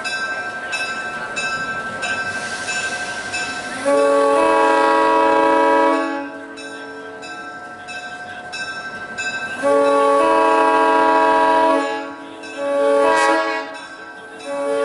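EMD SW8 switcher locomotive's air horn sounding a chord of several notes in two long blasts, a short one, and the start of a fourth near the end: the standard long-long-short-long grade-crossing signal. A bell clangs steadily at the start, before the horn.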